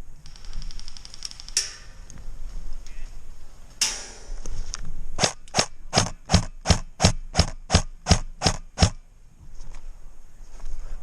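Airsoft rifle firing a quick string of single shots, about three or four a second, for roughly four seconds in the second half. Before it come two short rushing noises.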